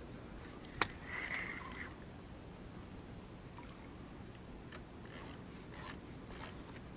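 A sharp knock about a second in, followed by a short splash, then three brief splashes near the end as a hooked wels catfish thrashes at the surface.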